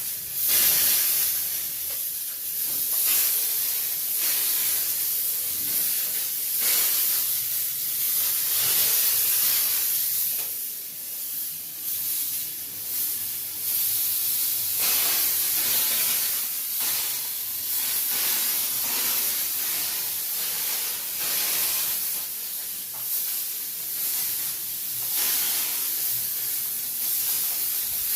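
Disinfectant sprayer hissing as it puts out a fine mist, the hiss swelling and easing every few seconds.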